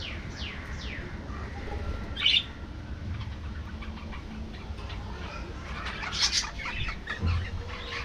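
A flock of budgerigars chirping and calling. A few quick falling whistles come near the start, a louder chirp a little over two seconds in, and a flurry of chirps around six seconds.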